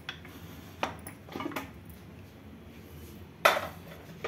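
Aluminium Prestige pressure cooker lid being handled and lifted off: a few sharp metal clanks, the loudest about three and a half seconds in, with a brief ring after it.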